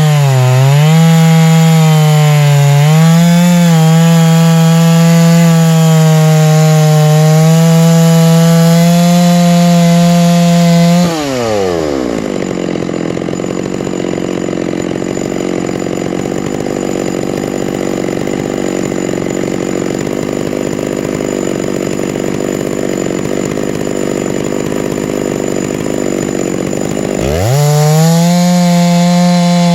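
Chainsaw mill ripping a white spruce log lengthwise, the saw held at a steady high pitch with brief dips under load. About eleven seconds in the throttle drops and the engine falls to a low, rough idle for roughly fifteen seconds, then revs back up to full speed near the end.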